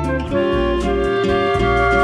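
Instrumental music: held melody notes over a bass line that changes note about every half second, with light percussion.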